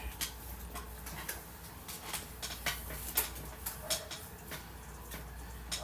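Light, irregular clicks and soft rustles of hands handling and fluffing wig curls.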